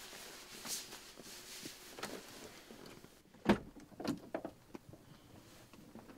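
Quiet car interior with faint rustling, then a short cluster of soft knocks and thumps about three and a half seconds in, the first the loudest.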